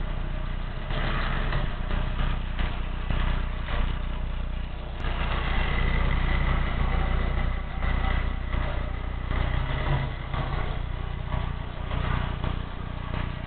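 Life-Like Li'l Joe Switcher HO-scale toy locomotive running around its track: a steady electric motor hum and whir with the continual clicking and rattle of the wheels over the sectional track.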